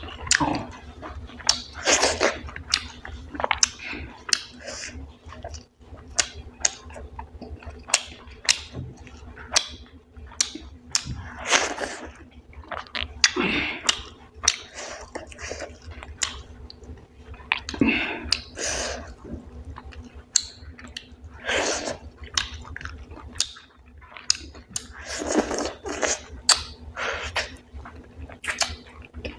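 Close-miked eating sounds of a person chewing wheat dhido and chicken curry: wet chewing with quick mouth clicks and smacks throughout, and a louder, noisier mouth sound every few seconds.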